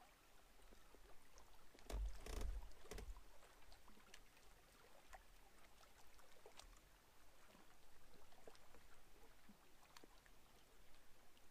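Near silence: faint lakeside ambience with light water lapping at a rocky shore, and a few soft low bumps about two to three seconds in.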